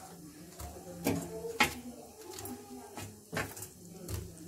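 Several sharp knocks and clicks at a steel cooking pot as fried lentil vadas are put by hand into simmering buttermilk curry, the loudest about one and a half seconds in.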